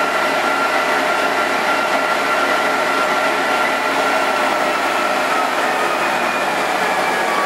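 Weslo Cadence G 5.9 treadmill's drive motor and belt running at top speed: a steady high whine over a rushing hiss, which begins to fall in pitch near the end as the treadmill slows.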